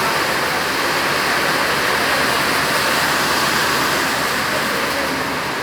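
Torrential rain pouring down with water rushing off the rocks, a loud steady hiss of noise with no break.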